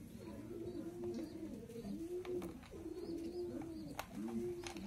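Pigeons cooing repeatedly, several overlapping low coos, with a few light clicks of plastic being handled; the sharpest click comes about four seconds in.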